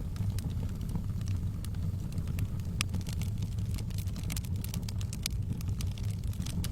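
Wood fire crackling in a fireplace: many sharp, irregular crackles and pops over a steady low rumble.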